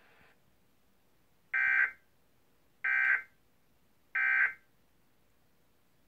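Emergency Alert System end-of-message signal: three short bursts of digital data tones, about 1.3 s apart, heard through a television speaker. They mark the end of the alert message.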